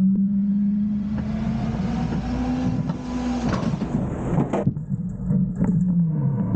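Front-loader garbage truck's engine revved up to drive the hydraulic forks, lifting and tipping a compactor bin over the cab, with trash sliding out into the hopper in a rushing hiss. Several knocks come as the bin tips and its lid swings open, and the engine pitch drops near the end.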